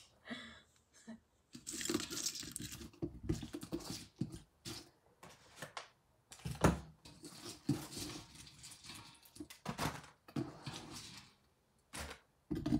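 Raw prawns being handled and gathered up by hand in a stainless steel sink: irregular rustling, crunching and knocking with short pauses, and a longer hissing stretch about two seconds in.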